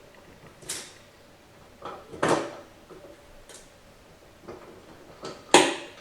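Metal transmission parts clinking and knocking as they are handled and fitted during reassembly of a Ford 5R55S automatic transmission: about seven separate clinks, the loudest about two seconds in and near the end.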